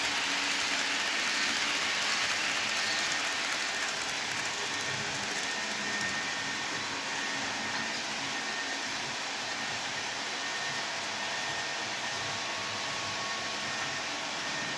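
HO-scale model freight cars rolling along the track, a steady rolling noise that drops a little after about four seconds as the train moves away.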